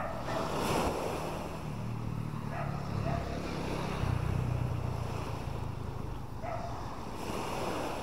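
Small sea waves washing onto a sandy beach, swelling near the start and again near the end, with wind on the microphone and a low rumble through the middle.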